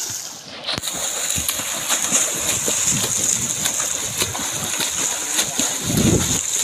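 Water splashing from swimmers doing front crawl in a pool. It starts suddenly after a short lull about a second in, under a steady high hiss.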